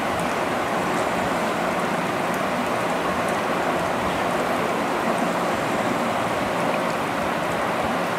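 Wet squelching and squishing of a hand kneading marinated chicken pieces with a thick onion-and-spice paste in a glass bowl, continuous and even.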